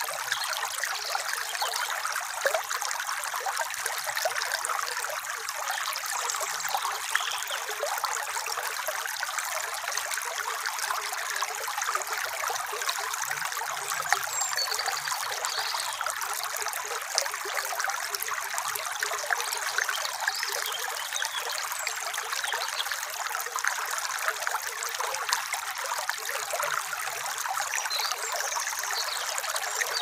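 Shallow stream running over a pebble bed: a steady rush of water peppered with many small splashes and drips.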